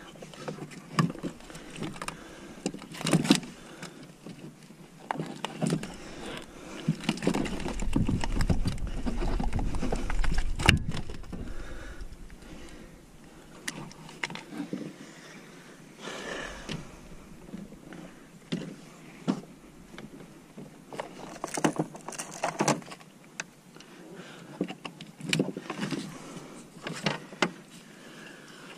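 Irregular knocks, clicks and rustles of a caught fish and fishing gear being handled on a plastic kayak deck. A louder stretch of rough rumbling noise in the middle ends in a sharp knock.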